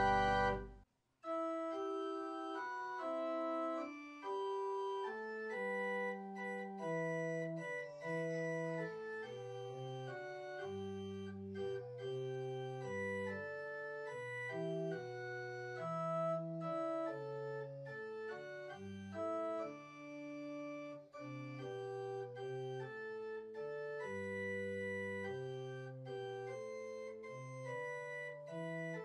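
Church organ playing a slow passage of held chords over a moving bass line. A loud chord cuts off about a second in and, after a brief pause, the playing resumes.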